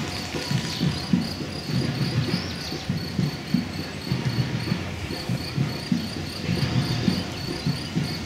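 Many runners' shoes striking an asphalt path, an irregular patter of footfalls as a pack jogs past. A faint high chirp pulses steadily, about three times a second, over it.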